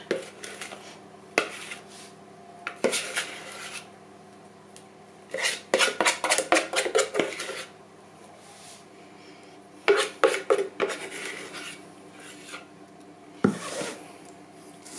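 A spoon scraping sponge-cake batter out of a mixing bowl into a metal springform pan, in several bouts of quick scraping and clinking strokes against the bowl and the pan, the longest run about five to seven seconds in.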